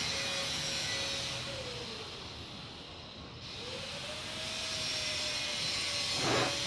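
A steady machine drone with a hum in it that sags in pitch and loudness about two seconds in, then climbs back up. A brief sound comes near the end.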